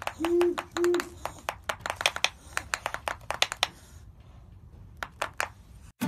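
Great horned owls bill-snapping: rapid, irregular sharp clacks, thick for the first three and a half seconds, then a few more near the end. Typical of an owl's defensive display. Two short low calls come near the start.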